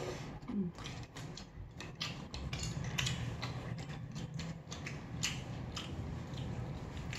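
Eating sounds: an irregular run of quick clicks and taps of utensils against dishes.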